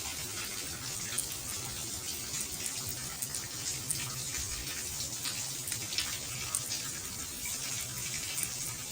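Waterfall running: a steady splashing rush of water, with small drips and splashes standing out from it.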